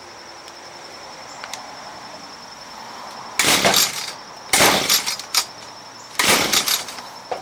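Three quick pulls on the recoil starter of an Echo SRM230 hedge trimmer's two-stroke engine. Each is a short rasp of rope and cranking, and the engine does not catch. Crickets chirp steadily underneath.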